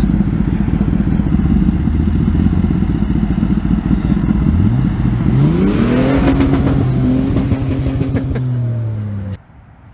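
Kawasaki ZX-10R sport motorcycle, stage 2 tuned with a full exhaust system, running at close range. A pitched engine note rises about halfway through and then holds, and the sound cuts off suddenly near the end.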